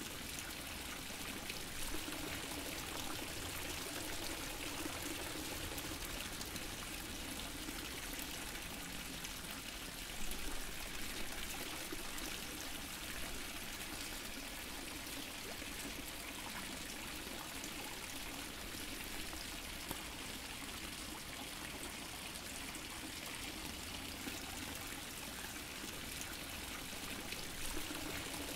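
Fountain water splashing and trickling steadily, with a slightly louder splash about ten seconds in.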